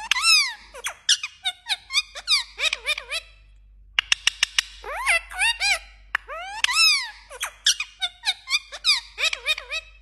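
Indian ringneck parakeet whistling and chirping: a rapid run of squeaky whistles that rise and fall, mixed with clicks, broken by a short pause and then repeated almost note for note.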